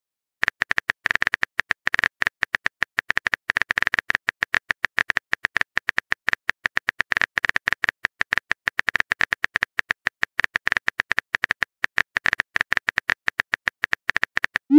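Rapid, irregular keyboard-typing clicks of a texting app's typing sound effect, several a second, as a message is composed. Right at the end a short rising tone begins as the message is sent.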